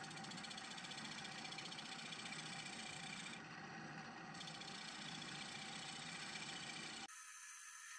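Wood lathe running while a turning tool cuts a spinning Western red cedar blank, a steady mechanical noise. About seven seconds in it cuts off abruptly into a thinner, higher hiss.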